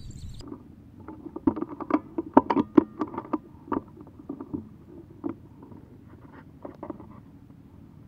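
Irregular knocks, clicks and scrapes of an air rifle with a scope-mounted camera being handled while aiming, clustered and loudest in the first half, then sparse.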